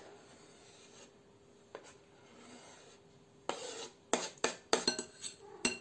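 Kitchen knife blade scraping chopped boiled egg off a bamboo cutting board into a glass bowl, followed by several sharp taps of the knife and board over the last couple of seconds.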